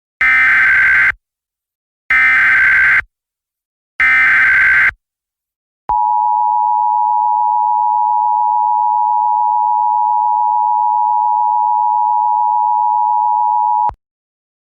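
Emergency Alert System SAME header: three loud, buzzy digital data bursts about a second long, two seconds apart. A steady EAS attention tone follows, holds for about eight seconds and cuts off sharply.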